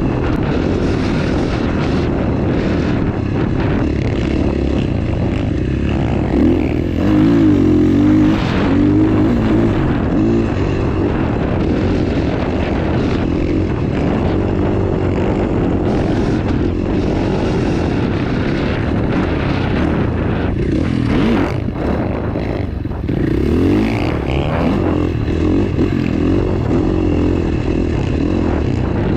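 KTM 450 single-cylinder four-stroke dirt bike engine running under way, its pitch rising and falling as the throttle is opened and closed.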